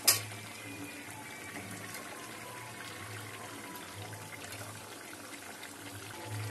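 Oil sizzling steadily in a steel kadai as cauliflower florets go in on top of frying potatoes, with one sharp knock in the pan at the very start.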